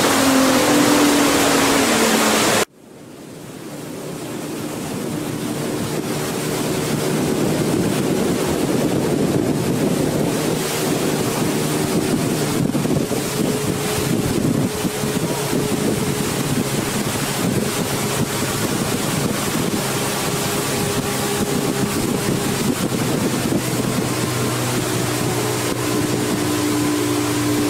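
Tour boat under way: its engine runs steadily beneath a loud rush of wind on the microphone and water along the hull. The sound drops out sharply about three seconds in, then slowly swells back up.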